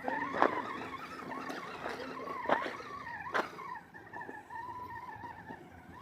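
Redcat Gen8 RC crawler's electric motor and geared drivetrain whining as it drives, the pitch wavering with throttle. There are a few sharp knocks, about half a second in, around two and a half seconds in and about three and a half seconds in.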